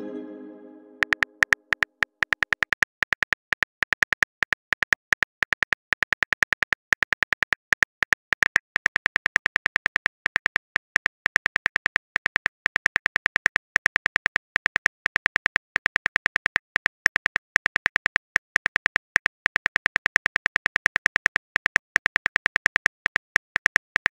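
Simulated phone keyboard clicks, a fast, steady run of several taps a second, as a long text message is typed out. A pitched chime fades away in the first second or so.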